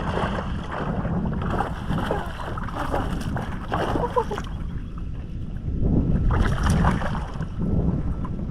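Wind rumbling on the microphone aboard a fishing kayak on open water, with two stretches of louder hiss about a second and a half in and again about six seconds in.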